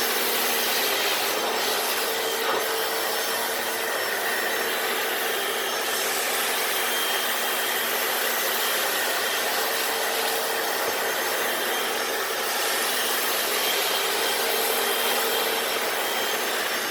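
Hoover FloorMate wet floor cleaner running steadily on a concrete garage floor, its motor giving a steady whine under an even rushing noise as its brushes scrub.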